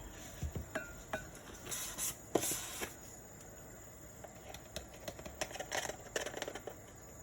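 A spoon clicking and scraping against a container and a bowl as cornstarch is scooped and added to a sauce, with two short scraping rushes about two seconds in and a run of small clicks later.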